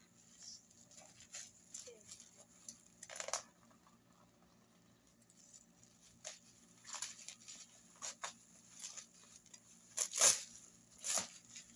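A parcel's packaging being handled and torn open by hand: scattered short rustles, scrapes and tearing, the loudest two near the end.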